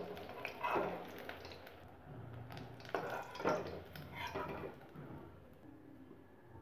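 Metal spoon scraping and clinking against a metal wok as fried battered fish-roe fritters are lifted out of hot oil, a few separate strokes over the faint sizzle of the frying oil.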